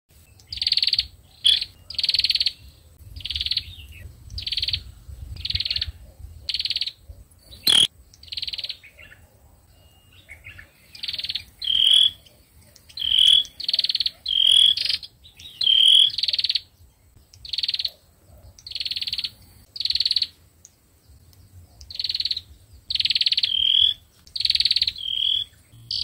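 Female sâu dừa bird giving a string of short buzzy churring calls, about one a second, each about half a second long; some end in a higher clear note. This is the female's 'ro' churr that rouses males. A single sharp click comes about eight seconds in.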